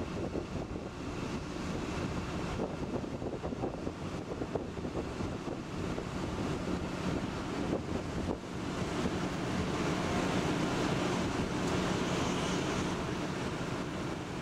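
Wind buffeting the microphone over moving harbour water, with the low steady hum of a boat's diesel engine that grows louder about halfway through.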